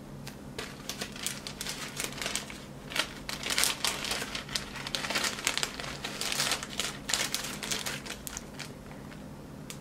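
A plastic zipper storage bag crinkling and rustling in irregular bursts as a small roll of blue paper shop towels is worked into it by hand, settling down near the end.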